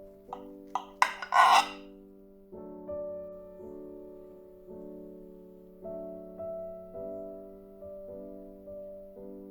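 Slow background piano music, soft chords repeating. About a second in, a short scraping rasp with a few clicks before it, the loudest sound.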